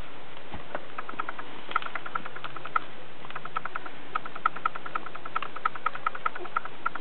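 Newborn puppies squeaking: quick runs of short, high squeaks, several a second, coming in bursts. A soft low thump about half a second in.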